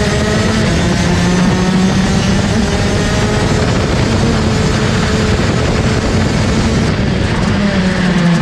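Rotax DD2 kart's 125 cc two-stroke engine running hard at high revs, heard from on board the kart, its pitch rising and falling slightly.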